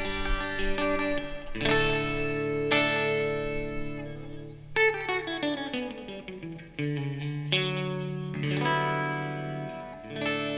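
PRS S2 Studio electric guitar being played: chords struck and left to ring, restruck about every second or two, with a quick run of falling notes about five seconds in.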